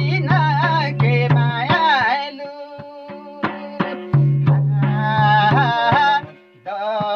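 A man sings a Nepali folk song in a high voice while playing a madal, the two-headed Nepali hand drum, with regular hand strokes and deep booming bass-head tones under the voice. The singing breaks off briefly about halfway and again near the end while the drum keeps going.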